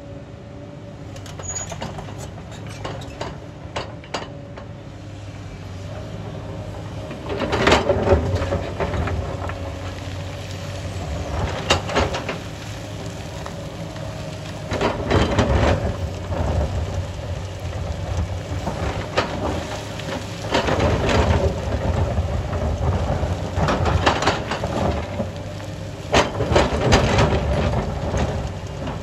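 Sany crawler excavator's diesel engine running steadily under hydraulic load while its steel bucket digs into rocky ground, with repeated crashes and rattles of rock and stones scraped and tumbling every few seconds, the loudest from about eight seconds in.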